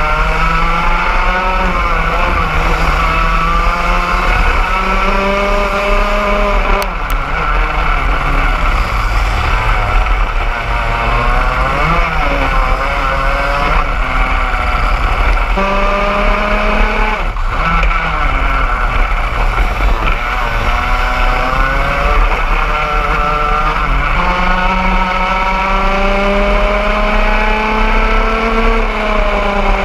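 Onboard sound of a KA3 Senior racing kart's 125 cc two-stroke engine at racing speed, its pitch climbing for several seconds along the straights and dropping off into the corners, over and over, with a steady low rumble underneath.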